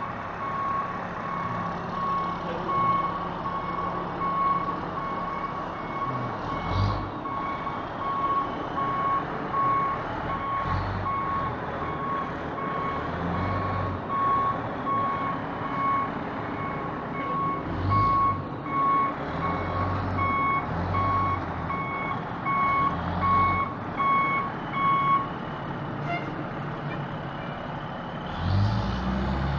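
Fire department aerial ladder truck reversing: its backup alarm beeps in a quick steady train over the rumble of its diesel engine, which swells now and then. The beeping stops about 25 seconds in, and the engine comes up loudly near the end as the truck pulls away.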